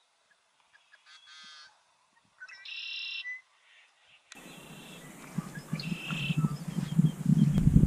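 Goose honking: two short calls, the second louder. About halfway through, the sound changes to a low rumbling noise that grows louder, with a few more short bird calls over it.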